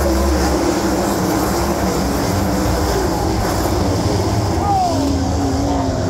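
Winged sprint car engines running around the track in a loud, steady din, with an engine note now and then gliding down in pitch, and people's voices mixed in.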